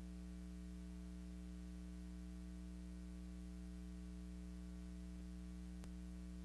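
Steady electrical mains hum under a hiss of noise, the noise floor of a silent film's transfer with no soundtrack of its own; a single faint click near the end.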